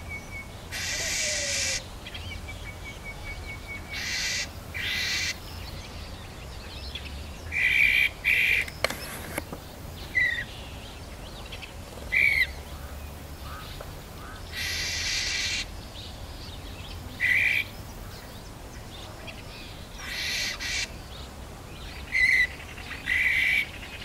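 A bird calling: a string of loud, harsh, rasping calls, each under a second long, about a dozen spaced irregularly, with a few short chirps between them. A thin, rapid high trill runs in the gaps during the first few seconds.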